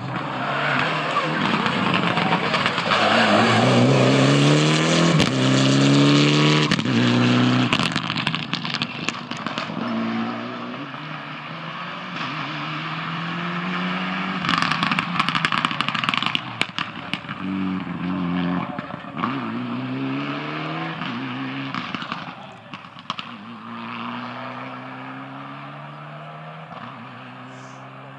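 Mitsubishi Lancer Evolution rally car's turbocharged four-cylinder engine driven hard, its pitch climbing again and again through the gears with short breaks at each shift, and bursts of sharp crackles along the way. It is loudest in the first several seconds and fades as the car drives away near the end.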